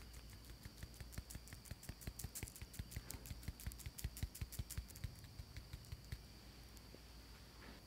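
Fine-mesh metal sieve being tapped and shaken to sift powdered sugar onto a paper stencil: a quick run of light ticks, several a second, thickest in the middle and stopping about six seconds in.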